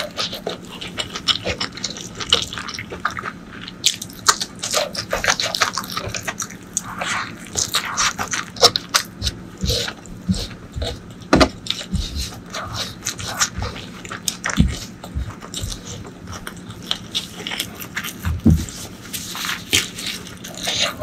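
Close-miked eating sounds: a person chewing a mouthful of curry and rice, with irregular wet smacks and clicks of the mouth.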